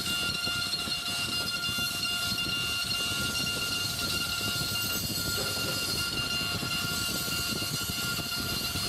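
CNC engraving machine's spindle running with a steady whine while its bit cuts a bronze lid, with rough cutting noise underneath.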